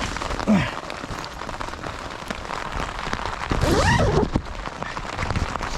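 Heavy rain falling steadily, a dense hiss of drops hitting close by, with a couple of short sliding sounds, one about half a second in and one just past the middle.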